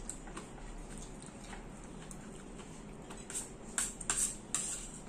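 Quiet eating sounds with faint clicks, then a metal spoon and fork scraping and clinking against a stainless-steel bowl several times, a little after three seconds in.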